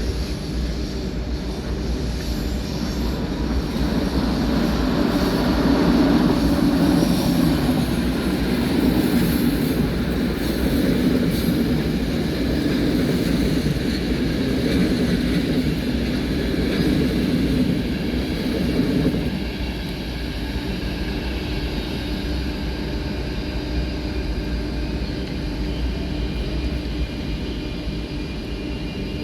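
A rail vehicle running past: a steady rumble with faint humming tones. It swells from about four seconds in and eases off after about nineteen seconds.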